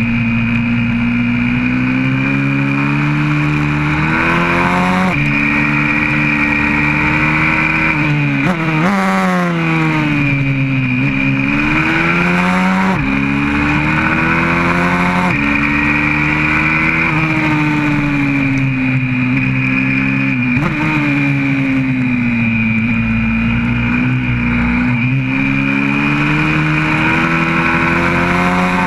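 YCF 125cc four-stroke single-cylinder pit bike engine heard onboard at racing speed, its note climbing under throttle and dropping sharply at each gear change. Several times the pitch slides down as the bike slows for a corner, then climbs again on the way out.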